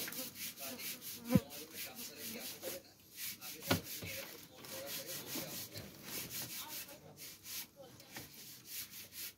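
Doves pecking and scratching at grit and straw on a cage floor: a quick, regular run of dry scratchy rasps, about four a second, with two sharper knocks, one near the start and one about halfway through.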